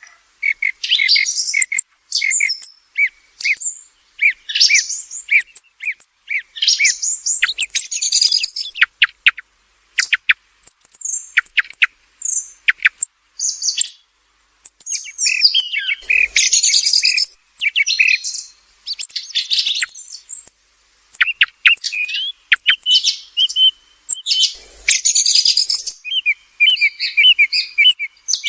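Song thrush singing: a run of loud, varied, high-pitched phrases of whistles and rapid notes, each phrase short and followed by a brief pause.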